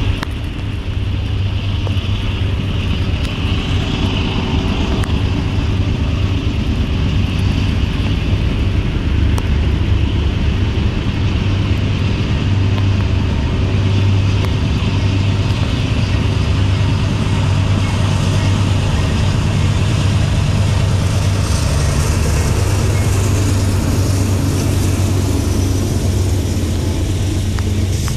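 Diesel-electric freight locomotives approaching and passing, their engines running with a steady low drone. High-pitched wheel-on-rail noise builds in the last third as the lead units come alongside.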